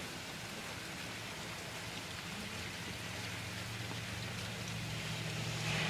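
Steady hiss of falling rain, growing a little louder toward the end, with a low steady hum underneath.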